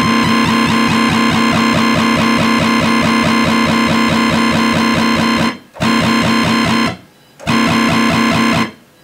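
Native Instruments Massive software synthesizer playing a dubstep wobble bass, a formant oscillator layered in and the same LFO pulsing the sound in a fast, even wobble. One note is held for about five and a half seconds, then two shorter notes follow with short gaps between them.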